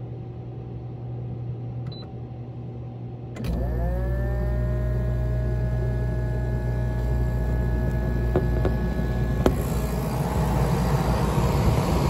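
Portable air conditioner's rotary compressor kicking on about three and a half seconds in, over the low hum of the blower on low speed: a sudden deep hum with a whine that rises in pitch for about a second and then holds steady as it comes up to speed. Near the end the whine stops with a sharp click and a rougher rushing noise takes over.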